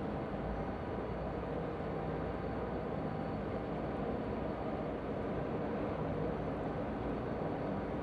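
Diesel locomotives of a freight train running steadily as they haul it across a steel truss bridge, a constant low rumble.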